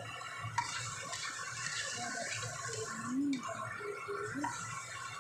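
Cubed tofu sizzling in hot oil in a nonstick wok, a steady crackling hiss, with a spatula stirring the cubes near the end.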